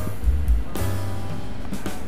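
Background music with a repeating bass line.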